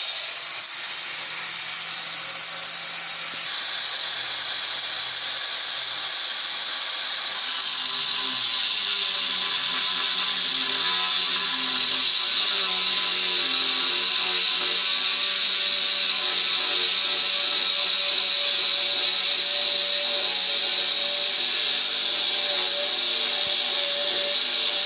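Handheld angle grinder with a cutting disc running and cutting into a polished granite countertop slab: a steady high grinding whine that gets louder about three seconds in and then holds.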